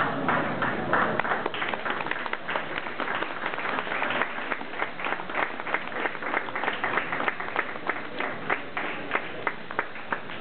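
Audience applauding: dense clapping at first, thinning in the second half to separate claps from a few people.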